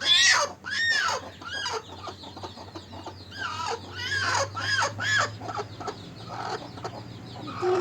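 A hen with her newly hatched chicks calling: a run of about ten short, high, arching peeps, loudest at the start and again around the middle, over a faint steady hum.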